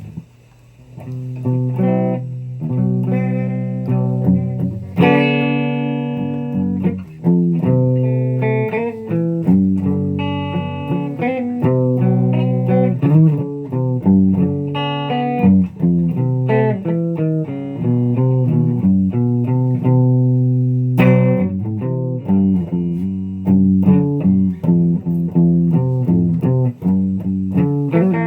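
Guitar playing without singing: a steady run of plucked notes and chords, with harder-struck chords about five seconds in and again about twenty-one seconds in.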